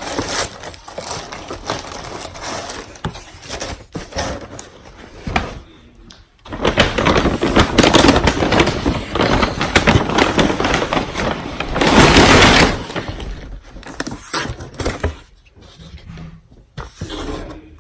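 Packaging being handled: paper or plastic rustling and crinkling. It is loudest through the middle, with a sharp, loud burst of crinkling about twelve seconds in.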